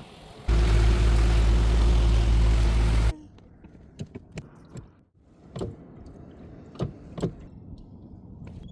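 A loud, steady engine rumble with heavy wind-like noise, cutting in and out abruptly after about two and a half seconds. After it comes a quieter stretch with a string of scattered sharp knocks and clicks.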